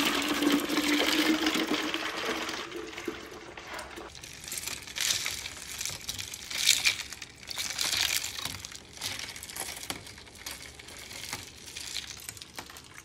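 Berry lemonade poured over ice into a glass jar: a steady gush for the first two or three seconds, then irregular crackling and clicking as the ice and fizz settle in the liquid.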